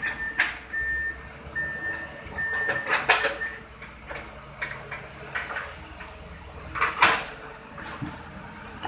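Toy truck's electronic beeping, a steady high beep repeated five times over the first three seconds or so, amid scattered plastic clicks and clatter. Two sharp knocks stand out, one about three seconds in and a louder one about seven seconds in.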